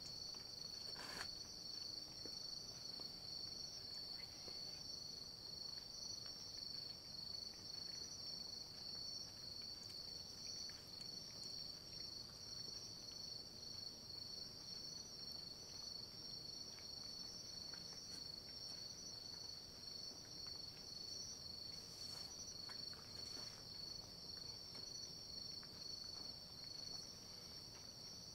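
A constant high-pitched whine in two close tones, with a few faint taps and ticks.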